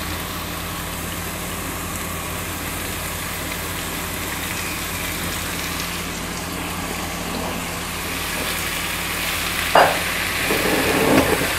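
Julienned cabbage, carrot and capsicum sizzling steadily in hot oil in a frying pan. Near the end a silicone spatula starts stirring and scraping them around the pan.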